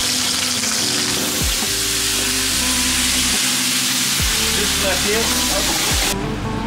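Wild gambas sizzling in hot fat in a frying pan on a gas burner while being flambéed; a dense, steady sizzle that stops abruptly about six seconds in.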